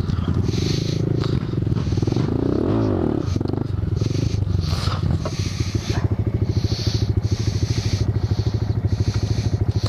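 Small single-cylinder motorcycle engine, a Honda Grom's, revving up and down as it rides off, then settling to an idle with a quick, even pulse from about halfway.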